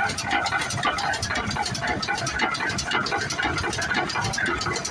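Vintage tractor engine running with a fast, steady clatter.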